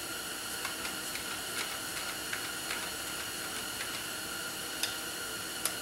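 Faint, irregular light metallic clicks from a Yamaha WR250F front fork being worked by hand during reassembly, over a steady hiss with a faint high whine.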